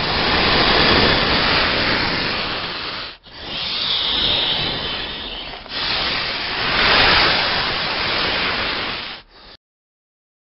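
Snake hissing, played as a sound effect: long, loud hisses broken by a short gap about three seconds in and a dip a few seconds later, stopping abruptly near the end.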